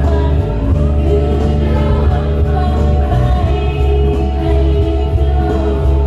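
Live amplified song: a woman's solo voice with a youth choir singing together, over an accompaniment with a strong, steady bass.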